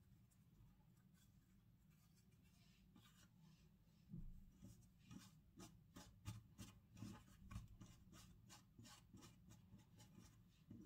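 Near silence with faint handling sounds: soft clicks and rubbing, several a second, starting about four seconds in and fading near the end.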